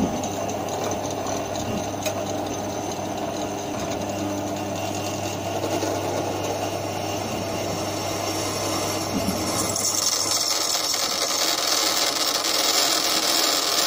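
Bench drill press running steadily while a dull twist bit is fed into a steel knife tang to drill a pin hole. About ten seconds in the low motor hum drops away and a higher-pitched scraping noise takes over.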